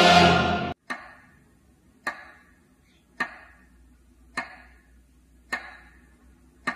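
Choir singing with accompaniment cuts off abruptly under a second in. Six sharp, evenly spaced ticks follow, a little over a second apart, each fading quickly.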